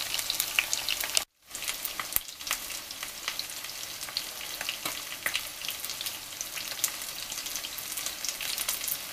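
Breaded chops and potato slices sizzling in hot oil in a frying-pan insert on a REDMOND multicooker, a steady hiss full of small crackles and pops, with a brief break about a second in.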